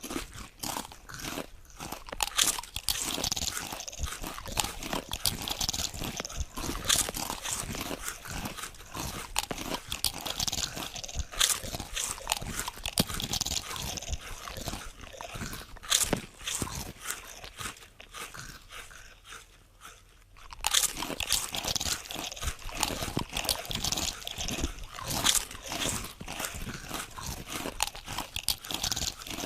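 Potato chips being bitten and chewed: a dense run of crisp crunching and crackling, with a brief quieter lull about two-thirds of the way through before the crunching resumes.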